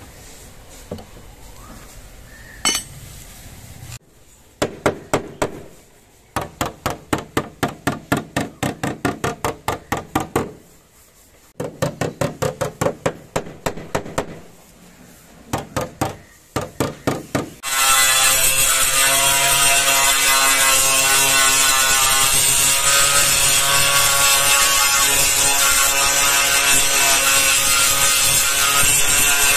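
Car body repair work. Rhythmic hand-tool strokes, about three or four a second, come in three bursts. About 18 seconds in, an electric power tool starts and runs loud at a steady pitch.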